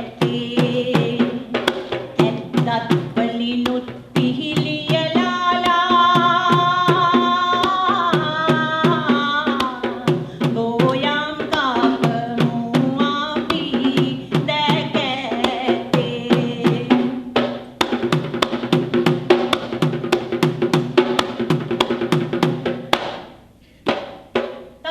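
Traditional Sri Lankan drums played in a fast, steady rhythm, with a sustained melody line of held and sliding notes above the drumming. The music breaks off near the end.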